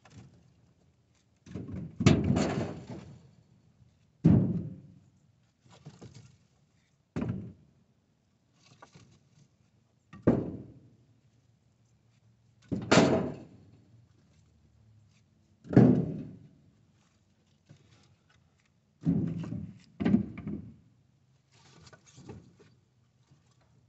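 Split firewood thrown piece by piece into a pickup truck bed: about ten heavy wooden thunks, irregularly spaced one to three seconds apart, each dying away quickly.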